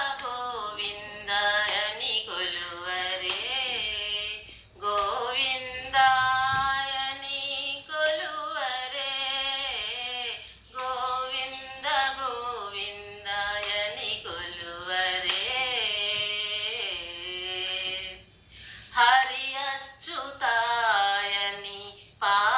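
A woman singing a devotional song, with long wavering, ornamented phrases broken by brief pauses.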